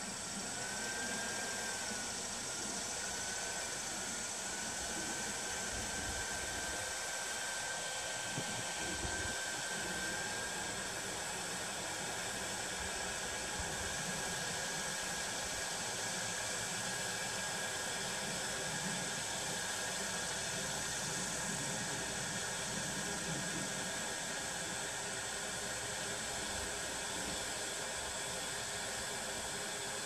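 Ryobi leaf blower running steadily, blowing air at an anemometer to spin it. It makes a hiss of rushing air with a thin motor whine that wavers and climbs in the first few seconds, then holds steady.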